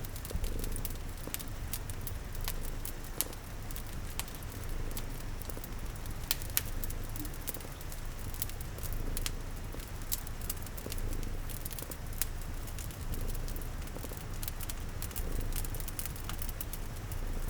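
Wood fire crackling, with many scattered sharp pops, over a steady patter of rain, and a cat's purring as a low rumble underneath.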